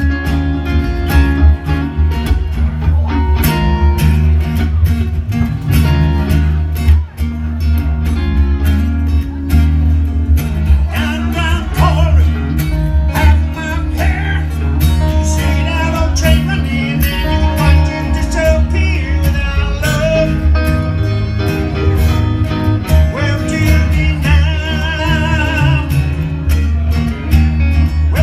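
Live rock band playing an up-tempo, guitar-driven song: rhythm guitar over a heavy bass line and steady drum beat, with a wavering lead melody coming in from about eleven seconds in.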